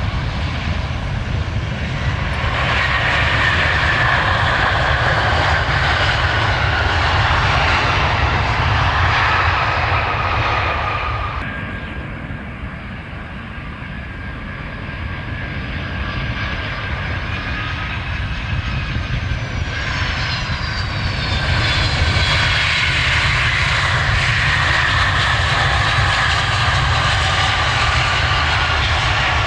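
Airliner engines on a runway, loud with a high whine. The sound eases about eleven seconds in, then builds again from about twenty seconds, with whine tones falling in pitch.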